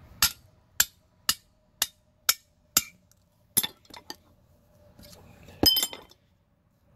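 Metal tool tapping and clinking against the cast-iron block of a Land Rover 2286 engine to knock out a camshaft bearing. Six evenly spaced sharp taps come about two a second, then a few more, then a louder ringing clatter near the end.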